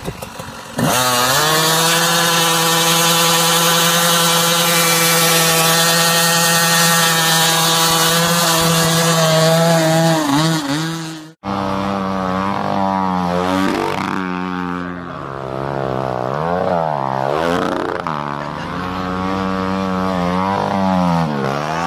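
Dirt bike engine starting up about a second in and held at high revs, its note nearly steady for about ten seconds. After a sudden break, a motocross bike's engine revs up and down several times, its pitch rising and falling as it accelerates.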